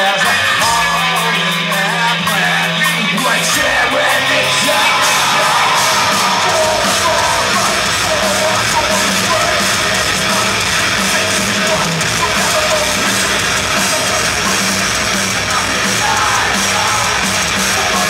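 Live heavy metal band playing: distorted electric guitars and bass hold low notes for the first few seconds, then the full band with drums comes in about four seconds in, with shouted vocals over it.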